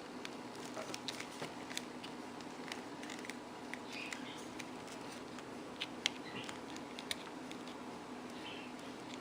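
Faint handling noises: scattered light clicks and small rubbing sounds as wire connectors are pushed onto the terminals of a vacuum hose connector, over a steady low hum.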